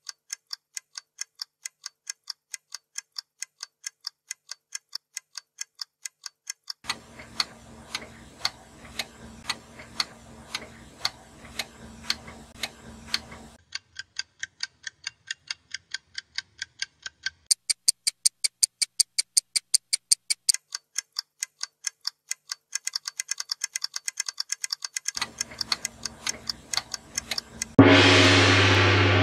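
Wall clock ticking at about two ticks a second, the ticks getting faster further on, with a low hum behind it in two stretches. Near the end a deep gong-like chime strikes once and rings on as the clock reaches four o'clock.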